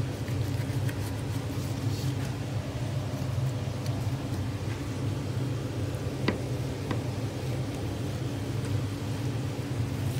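Steady low machinery hum, with a few faint ticks as a butcher's knife slices a steak from a beef top round on a cutting board.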